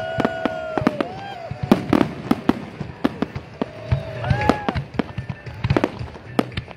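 Aerial fireworks shells bursting in a rapid, uneven string of sharp bangs and crackles. A few long pitch glides rise and fall over them, mostly about the start and again around four seconds in.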